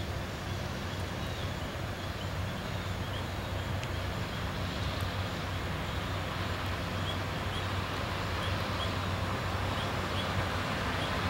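Diesel engine of slow-moving yellow rail maintenance equipment approaching: a steady low drone that grows slowly louder. Birds chirp lightly in the background.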